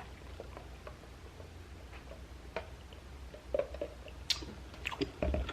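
Faint eating sounds: soft mouth clicks and smacks, scattered and irregular, over a low steady hum.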